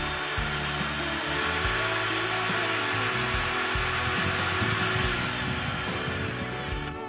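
HDT CDD405 cordless drill running free with no load. It speeds up about a second in, holds a high whine, then winds down near the end, as the variable-speed trigger is squeezed and eased off. Background music with a steady beat plays underneath.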